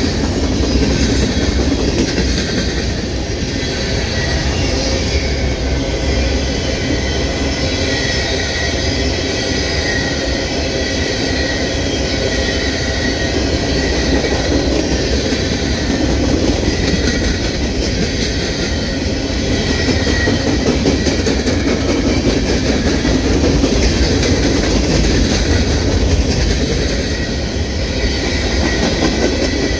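Freight train cars rolling past at close range: a steady, loud rumble and clatter of steel wheels on the rails, with a thin high squeal that comes and goes.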